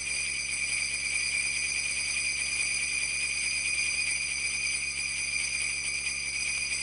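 Sleigh bells jingling steadily, a bright high shimmer that does not change, as part of a Christmas music cue.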